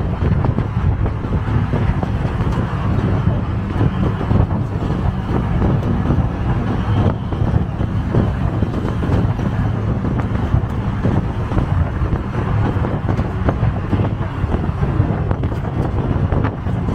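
Auto-rickshaw engine running steadily as it drives, with road and wind noise heard from inside the open cab.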